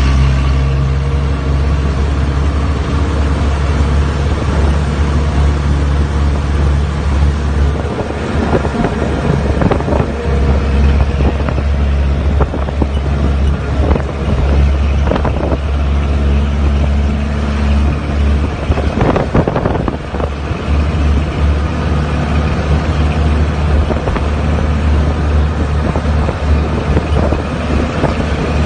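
Jeep's engine running steadily as it drives along, heard from inside the open-sided cabin, its low note shifting a few times. Wind buffets the microphone, and scattered knocks and rattles sound from about eight to twenty seconds in.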